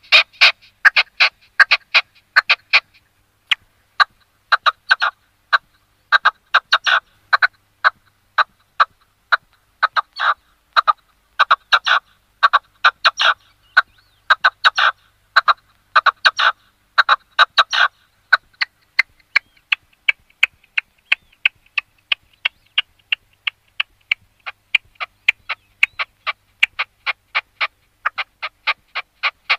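Red-legged partridge calling: long runs of short, clipped notes repeated several times a second, fainter and more even in the last third.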